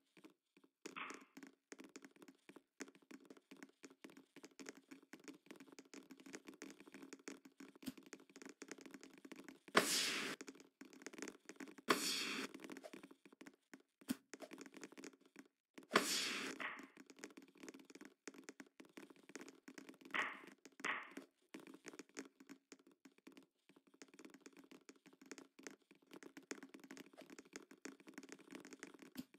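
Volleyball being played indoors: scattered thuds, taps and knocks of the ball and players' feet, with a few louder bursts of noise a third of the way in, near the middle and shortly after.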